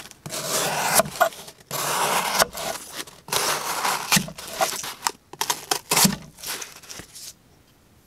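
CRKT Razelcliffe compact folding knife slicing through corrugated cardboard, a rough scraping and tearing with each stroke, about five cuts in a row that stop about a second before the end.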